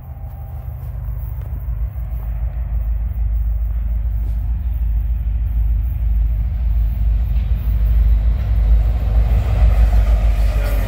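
Two CN EMD diesel freight locomotives, an SD75I and an SD70M-2 with 16-cylinder two-stroke 710 prime movers, approaching and passing. Their deep engine rumble grows steadily louder, and wheel and rail noise rises near the end as the lead unit goes by.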